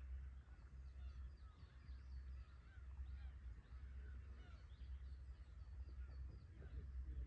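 A flock of black-tailed gulls calling over one another, a steady stream of short mewing calls overlapping without pause. Beneath them runs a low, steady rumble.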